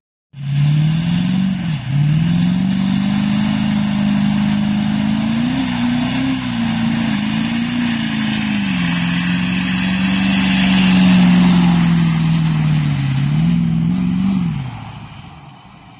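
1988 Chevy squarebody pickup with a swapped 6.6 L LB7 Duramax V8 turbo-diesel doing a burnout: the engine is held at high revs with the rear tyres spinning and smoking. The engine note dips briefly about two seconds in and again near the end, then fades as the truck pulls away.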